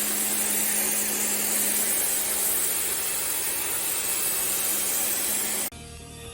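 Pressure washer running and spraying: a steady hiss of water spray over a constant low engine or pump hum. It cuts off abruptly near the end, leaving a quieter sound.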